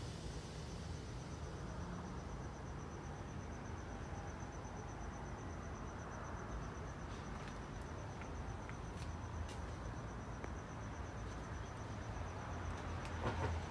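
A cricket chirping steadily in a high, evenly pulsed tone over low rumbling handling noise. There are a few light clicks midway and a louder bump near the end.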